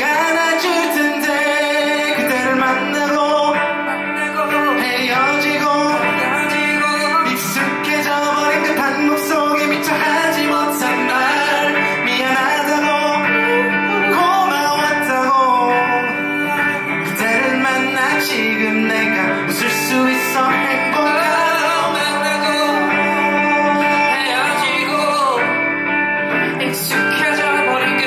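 Live music: a male singer singing a ballad over guitar accompaniment.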